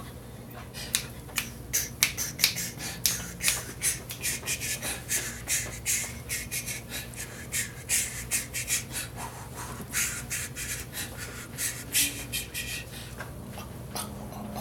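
A quick, irregular run of sharp clicks and snaps, several a second.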